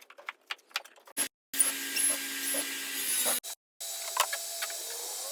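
Workshop tool sounds in short cut-together clips: a quick run of clicks and taps, then a steady power-tool whir lasting about two seconds, then a few more clicks over a steady hum.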